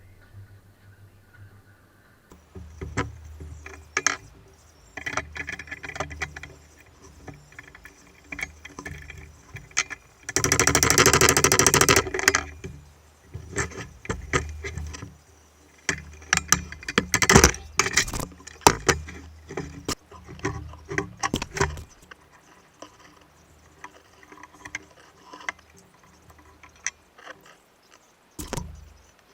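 Metal parts and hand tools clinking and knocking as a pillar drill's head is taken apart, with a dense rattling burst of about two seconds near the middle and a low hum underneath for much of the time.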